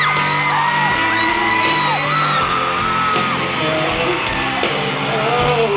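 A band playing a live ballad with amphitheatre loudness, while a crowd of fans screams over it in long, high-pitched shrieks.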